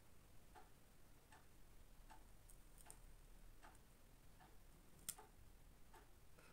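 Near silence: room tone with faint, evenly spaced ticks, a bit more than one a second, and one slightly louder click about five seconds in.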